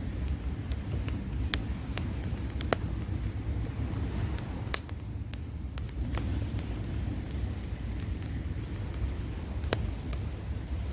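Wood campfire crackling, with sharp, irregular pops scattered through, over a steady low rumble of surf.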